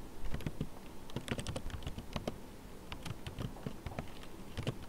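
Computer keyboard typing: a short word typed as quick, irregular runs of key clicks.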